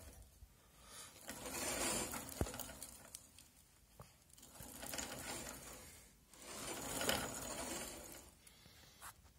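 Roller chain running over the rear sprocket of a motorcycle as the raised rear wheel is spun by hand, three times, each a whirring rattle with small clicks that rises and dies away. The chain is a freshly fitted Chinese TMMP chain with staked pins, and the rear brake is set slightly tight.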